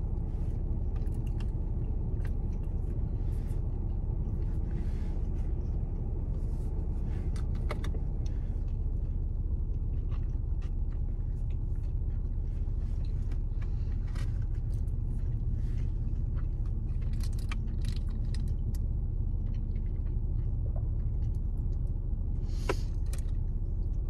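Steady low rumble of an idling car, heard from inside the cabin, with scattered small clicks and rustles from eating with chopsticks.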